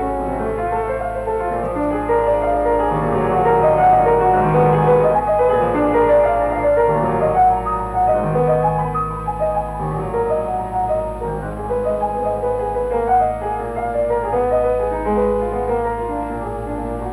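Film score music led by piano, a flowing melody of many changing notes over a steady low hum.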